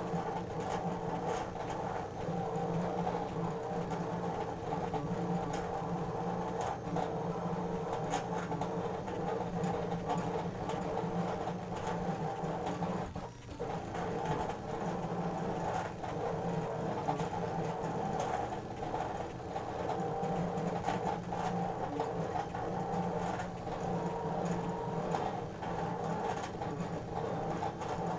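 Brother ScannCut cutting machine drawing with its draw pen: its motors whir steadily as the pen carriage and mat move, with scattered clicks throughout and a brief dip about halfway through.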